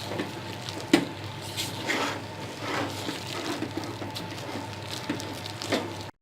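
A thick rice-flour dough is stirred and worked in a pot, making irregular wet squishing and scraping strokes with a sharp knock about a second in. It cuts off suddenly just before the end.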